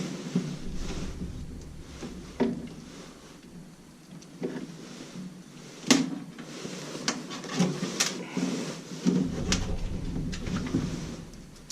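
Hand tools and furnace parts being handled during an inducer motor install: scattered clicks, taps and light knocks, the sharpest click about six seconds in.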